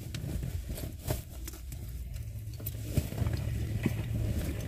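Scattered light clicks and rustles over a low steady rumble in a car's cabin.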